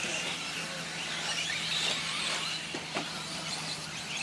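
Several electric RC short-course trucks racing, their motors whining and rising and falling in pitch as they accelerate and brake around the track. There are a couple of sharp knocks about three seconds in, over a steady low hum.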